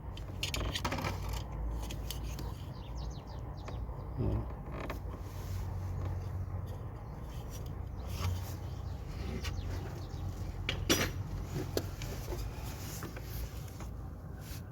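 Hand tools working on engine parts: scattered metallic clicks and creaks over a steady low background rumble, with one sharper click about eleven seconds in.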